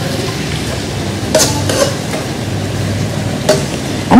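Metal spatula stirring a stir-fry of sliced greens and meat in a frying pan, with sharp clinks of metal on the pan about a second and a half in and again near the end, over a steady low hum.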